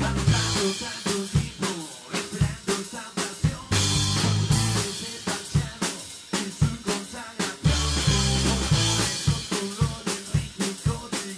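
Rockabilly band playing: a drum kit keeps a steady beat of snare and bass-drum strokes, with electric bass and electric guitar. The low bass notes come in and drop out in stretches, leaving the drums briefly on their own.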